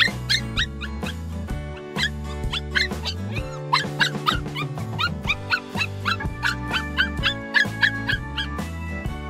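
Puppy whining and yelping in quick, high, sliding cries, over and over, shut in a wire crate and anxious. Background music with low held notes plays underneath.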